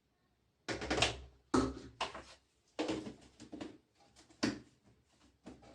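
Kitchen handling sounds while flour is added to a batter mixture: about five short knocks with rustling, each sudden and quickly fading.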